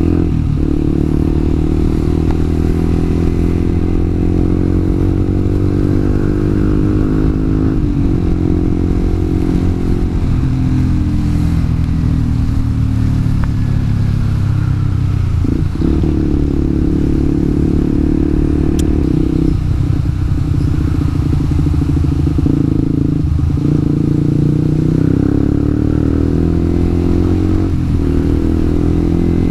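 Yamaha R15 v2's single-cylinder engine running under way, its pitch rising and falling with the throttle and dropping off briefly several times.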